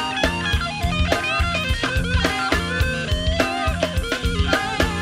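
Rock band playing with no vocals: an electric guitar melody with bent notes over bass and a steady drum kit beat.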